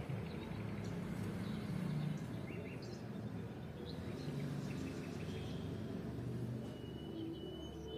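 Steady low background hum and hiss with a few faint, short bird chirps.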